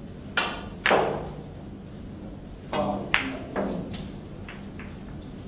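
A pool shot: the cue tip strikes the cue ball, then a sharp, louder clack as the ball hits an object ball. A few more ball knocks follow between about two and a half and three and a half seconds in as the balls run on.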